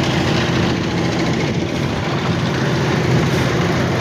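Heavy engine of construction machinery running steadily at a constant speed.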